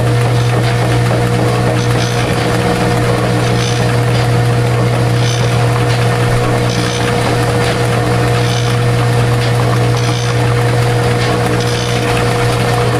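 Rotating pan agglomerator mixer running: a loud, steady machine hum with a couple of steady whining tones above it. A faint hiss recurs about every one and a half seconds.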